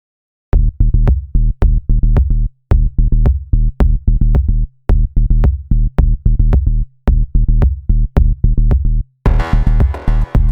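Electronic music with a heavy, deep drum-machine beat that comes in about half a second in, playing in short repeating groups with brief breaks; a brighter synthesizer layer joins near the end.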